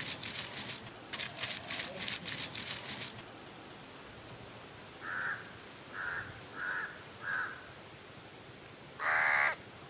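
Stone roller crushing dried red chillies and garlic on a wet stone grinding slab: a quick rhythmic scraping of stone on stone, a few strokes a second, stopping about three seconds in. Then a bird calls four short times in quick succession and once more, louder, near the end.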